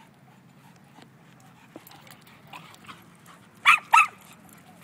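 A dog barks twice in quick succession about three and a half seconds in: two short, loud barks.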